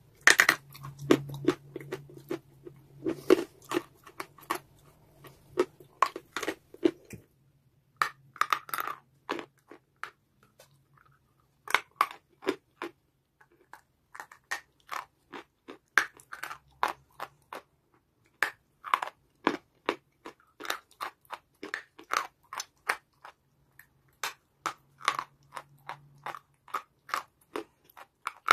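A dry white chalky clay being bitten and chewed close to the microphone. A dense run of crisp crunches for the first several seconds, then separate sharp cracks with short pauses between bites.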